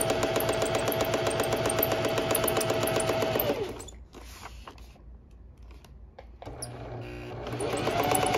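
Electric sewing machine running unthreaded, its needle punching rapidly through a sheet of paper over a steady motor hum. About halfway through it slows to a stop, and after a short pause it starts up again near the end, picking up speed.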